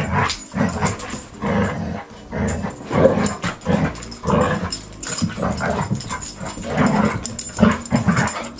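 Labrador retrievers play-growling as they wrestle, in a run of short growls about two or three a second.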